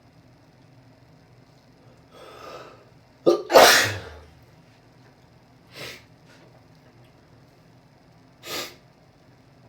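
A person sneezing once from allergies: an indrawn breath just after two seconds, then one loud sneeze about three and a half seconds in. Two short, fainter breaths follow, near six seconds and near the end.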